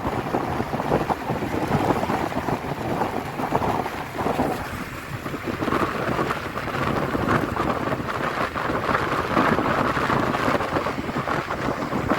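Wind buffeting the microphone on a moving motorcycle, a loud, steady rushing rumble that turns brighter and hissier about halfway through.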